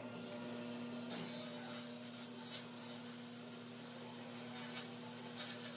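Table saw running and ripping plywood fed through with a push stick: a steady high whine with hiss starts about a second in, over a low hum.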